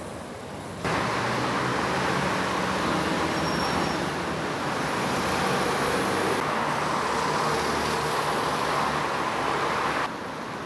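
City street traffic on a wet road: cars and buses passing in a steady wash of engine and tyre noise. It jumps louder about a second in and drops back near the end.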